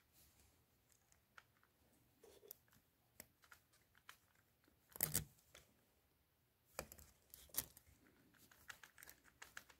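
Faint clicks and scrapes of small plastic and metal RC-car parts being handled: a hex hub with a set screw is being pushed onto the axle at the hub carrier and won't go in. There is a louder scrape about five seconds in and a couple more about two seconds later.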